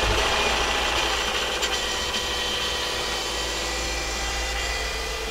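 Subaru Forester's freshly installed replacement flat-four engine running at idle on its first start after an engine swap. It is a little louder in the first second, then settles to a steady idle.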